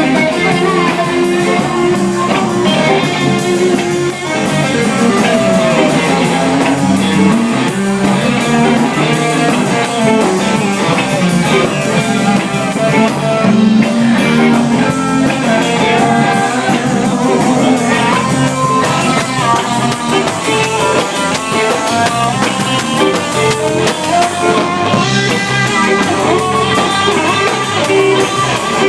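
Live rock band playing a loud instrumental passage, guitar to the fore.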